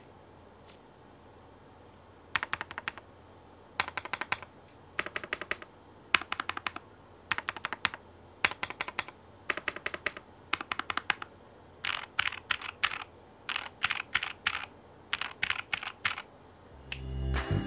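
Typing on a Zuoya GMK67 mechanical keyboard with double-shot PBT keycaps: short bursts of clacking keystrokes with brief pauses between them, starting about two seconds in.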